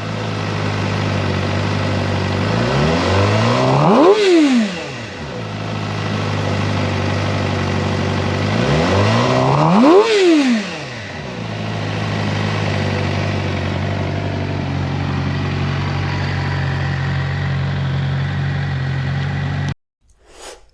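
2025 Suzuki GSX-R600's inline-four engine idling and revved twice, each rev climbing quickly and falling back to idle. Near the end the sound cuts off suddenly.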